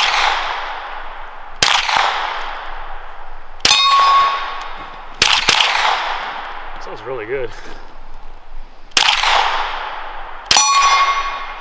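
Five suppressed shots from a carbine, spaced irregularly about one and a half to four seconds apart. Several are followed by a short metallic ringing, the sound of a steel target being hit.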